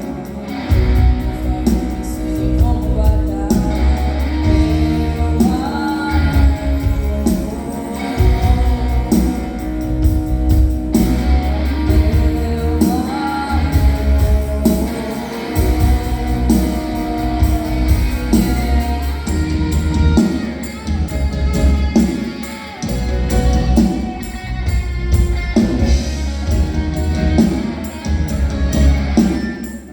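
Live band music: a female singer over guitar, with a drum kit and percussion keeping the beat.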